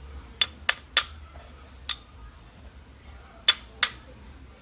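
Six sharp metallic taps and clinks at uneven intervals from the steel parts of a 2011 Toyota Corolla's outer CV joint: its balls, cage and housing being tapped and worked as each ball is forced into place under pressure.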